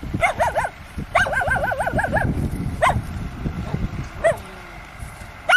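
A dog yelping in several quick bursts of high, wavering yips whose pitch swings rapidly up and down, over a low rumble.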